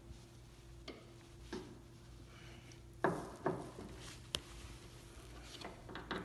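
Small clicks and knocks as the socket end of a new 2010 Toyota Camry hood strut is worked onto its ball stud on the hood. There is a louder knock about three seconds in, a sharp click just after four seconds, and a few quick clicks near the end.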